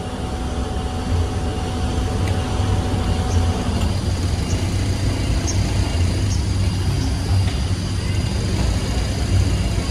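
Steady low rumble of a road vehicle on the move: engine and tyre noise.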